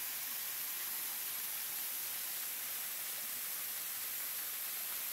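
Small waterfall cascading down a rock face: a steady, hissy rush of falling water.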